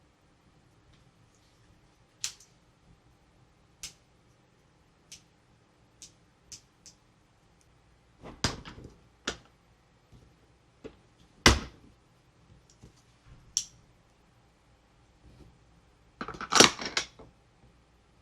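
Toys and their plastic packaging being handled: scattered sharp clicks and taps, a few seconds apart, with a loud single click past the middle and a quick flurry of clicks near the end.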